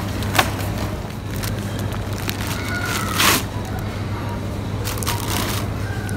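Groceries in a plastic-wrapped bundle being handled in a metal supermarket trolley: a sharp click, then noisy rustles of plastic packaging, the loudest about three seconds in and another about five seconds in, over a steady low hum.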